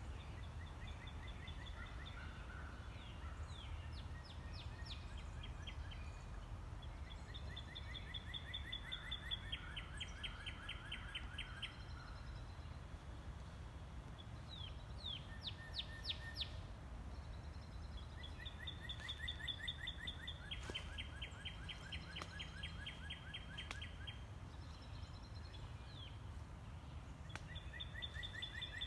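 A songbird singing repeated phrases of rapid, evenly spaced high notes, each phrase lasting a few seconds and coming back about every ten seconds, with a few quick downward-sweeping calls between them. A steady low rumble of outdoor background noise runs underneath.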